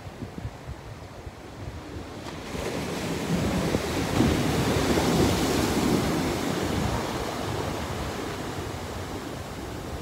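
Small ocean waves breaking and washing up a sandy beach. The surf swells about two and a half seconds in, is loudest around the middle, then fades. Wind buffets the microphone throughout.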